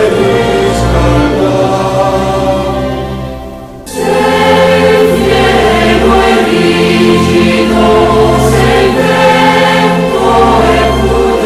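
Choral music: a choir singing a slow sacred song in Italian. The music fades down about three seconds in, and a new passage starts abruptly about a second later.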